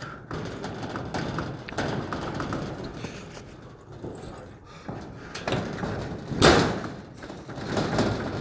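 Rustling and knocking from handling things, with a loud thump about six and a half seconds in and a smaller one near the end.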